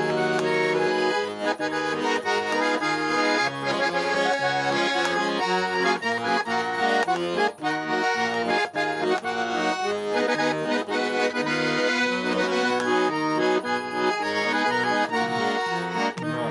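Instrumental intro of a Russian pop song with an accordion melody. It opens on one held chord, then a quick melodic line runs over a rhythmic bass.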